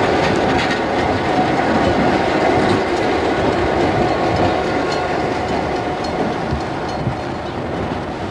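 Iowa Interstate diesel locomotive passing close, its engine running and its wheels clicking over rail joints. The sound fades gradually as it moves away.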